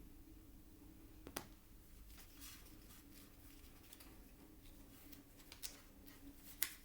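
Plastic Lego pieces being handled and pressed together: a few scattered light clicks, the sharpest near the end, over a faint low hum.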